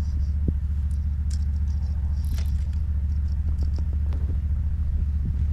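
A steady low rumble with a few faint, short clicks over it.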